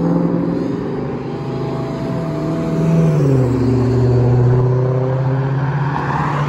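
Road vehicles: an engine running with a steady low hum that drops in pitch about three seconds in, then a car passing close by near the end with rising tyre noise.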